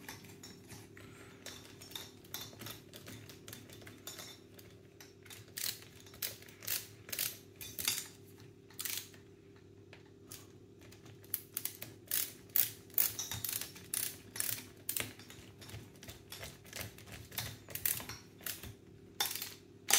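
A long screwdriver turning the screw inside a Double Eagle UTR556 airsoft rifle's buffer tube, fastening the tube in place: a string of small, irregular metallic clicks and ticks. The clicks thin out briefly about halfway through, then come thicker.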